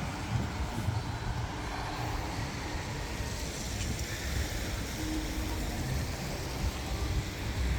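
Steady road traffic noise, a low rumble with a haze of vehicle sound.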